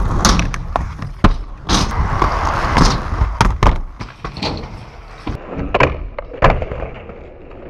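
Inline skate wheels rolling over skatepark ramps, with repeated sharp clacks and slaps as the skates land and knock against the ramp surfaces and edges.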